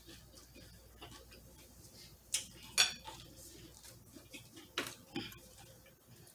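A few sharp clinks of cutlery and dishes against a plate, four in all, the loudest about three seconds in with a brief ring.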